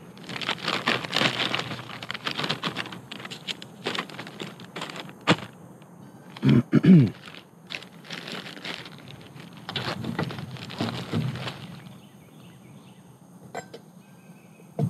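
Crinkling of wrappers and packaging being gathered up as trash, in two long spells with pauses. About six and a half seconds in come two short, louder low pitched sounds.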